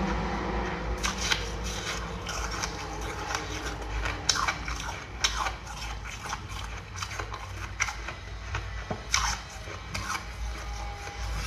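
Thin ice being chewed: irregular sharp crunches and crackles, about one or two a second, starting about a second in.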